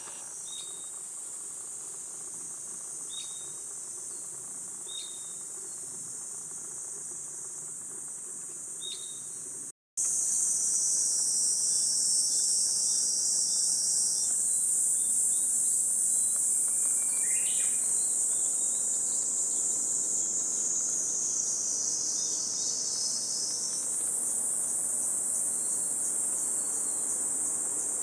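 Cicadas buzzing in a continuous high-pitched chorus. About ten seconds in the sound cuts and resumes louder, and midway the drone sinks lower in pitch for several seconds before rising back.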